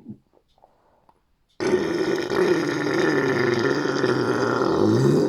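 A long, loud, drawn-out burp that starts suddenly about a second and a half in and keeps going, its pitch wavering.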